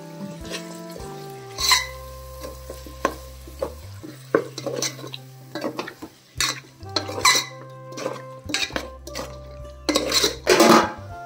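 A steel spoon stirring chicken pieces and masala in an aluminium pot, scraping and knocking against the metal sides in irregular clatters; the loudest run of knocks comes near the end.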